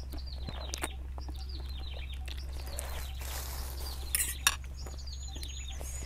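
Someone eating noodle soup: slurping noodles, with scattered clinks of a fork and spoon against the bowl, the sharpest about four and a half seconds in. Small birds chirp repeatedly in the background.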